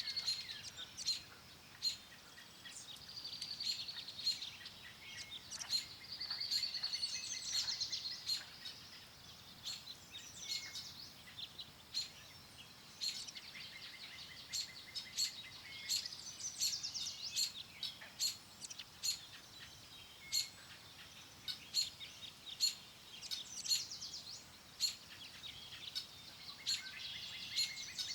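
Several songbirds singing together: a dense chorus of sharp repeated chirps and warbling trills, with a few longer, louder song phrases about four and seven seconds in.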